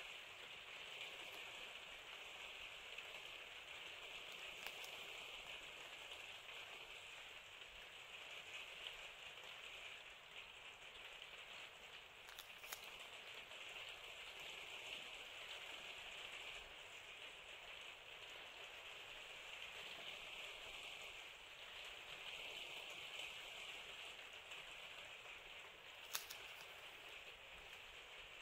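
Masking tape being peeled slowly off drawing paper: a faint, steady hiss, with a sharper click about midway and another near the end.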